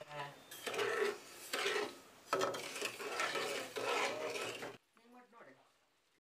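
Flat metal spatula scraping and stirring around a metal kadai of sugar and water heating into syrup, in several rasping strokes that stop abruptly near the end.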